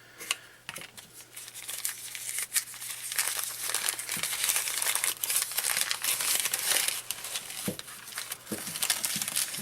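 Packaging being crinkled and unwrapped by hand, a continuous crackling rustle with many small ticks, with a few soft knocks as things are handled.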